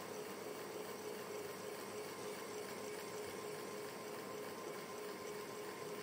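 Electric fan running steadily: an even, unbroken airy hiss with a faint steady hum underneath.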